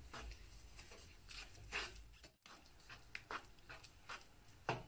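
Wooden spatula stirring thick semolina and flour halwa in a nonstick pan: soft, irregular scraping strokes.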